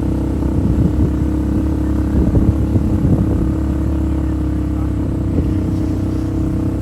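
Off-road vehicle engine running at a steady, constant pitch, with short irregular knocks and rattles through the first half.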